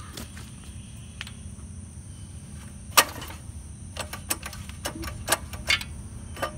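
Irregular sharp clicks and taps from hands and tools working on a trash pump's small gasoline engine, the loudest about three seconds in and several more close together near the end, over a steady low rumble.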